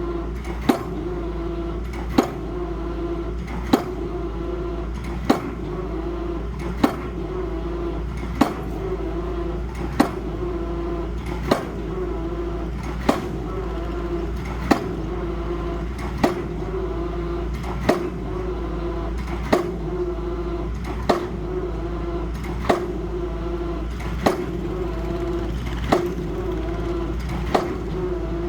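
Machine running with a steady hum and a sharp knock repeating evenly about every one and a half seconds.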